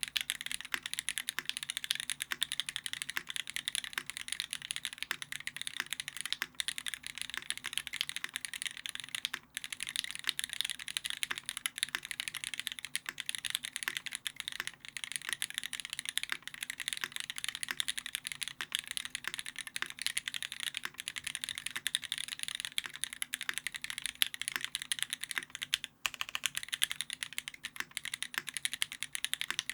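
Fast, continuous typing on a custom mechanical keyboard with lubed and filmed vintage black Cherry MX switches in a brass plate, under GMK keycaps, with brief pauses about nine and twenty-six seconds in.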